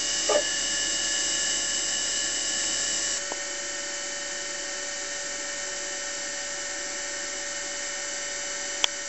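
Spindle motor of a small homemade CNC milling machine running with a steady high-pitched whine while its cutter works a board, with a short pitched buzz from the machine right at the start. The whine drops slightly in level about three seconds in, and a single click comes just before it cuts off.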